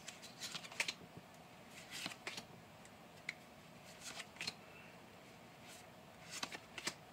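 Pokémon trading cards being flipped through one by one, each card slid from the front of the stack to the back: faint clicks and slides of card stock in short clusters about every two seconds.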